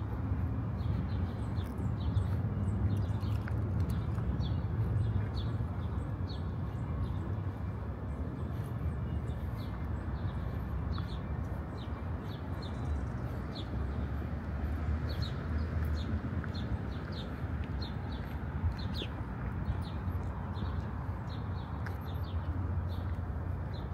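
Small birds chirping, many short repeated chirps, over a steady low rumble of city traffic.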